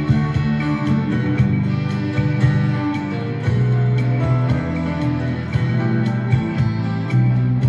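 Charvel electric guitar playing a melodic ballad solo over a backing track with a held bass line and a steady light beat.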